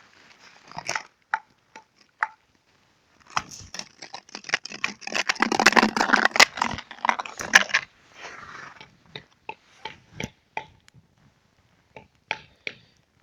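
Close rustling and crunching with scattered sharp clicks, densest for about four seconds in the middle.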